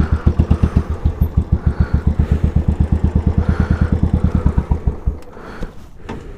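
Royal Enfield Classic 500's single-cylinder engine, fitted with an aftermarket exhaust, idling with a loud, even beat of about ten pulses a second. It cuts out abruptly about five seconds in as the engine is switched off.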